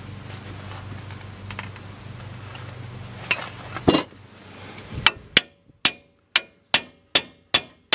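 Hammer blows on steel at the upper ball joint of a Dodge Ram van's front suspension, working the tapered stud loose with a ball joint separator fitted. Two separate strikes come a little after three seconds in, then from about five seconds a quick, even run of ringing metal-on-metal hits, about two and a half a second.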